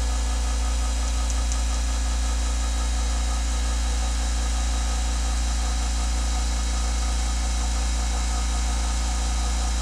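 Airbrush air compressor running steadily with a low hum and a few steady higher tones.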